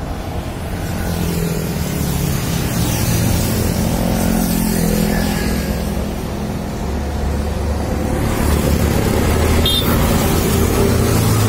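Road traffic passing, with the diesel engine of a Volvo FL10 360 6x2 tipper truck running as it approaches and drives past, the low engine hum growing louder in the second half. A brief high squeal sounds a couple of seconds before the end.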